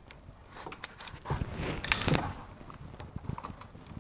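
Scattered plastic clicks and knocks as gloved hands prise a retaining clip off a car door's wiring harness and handle the harness and its rubber boot, busiest about a second or two in.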